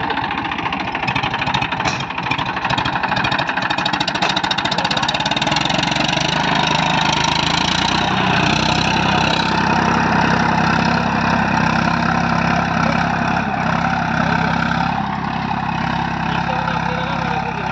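Massey Ferguson 241 DI tractor's three-cylinder diesel engine running under load while pulling a seed drill. A rapid firing beat in the first few seconds smooths into a steadier engine note from about six seconds in.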